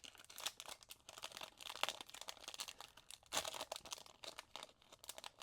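Wrapper of a 1993 O-Pee-Chee baseball card pack being torn open and crinkled by hand, in irregular crackling bursts, the strongest about two seconds in and again past the middle.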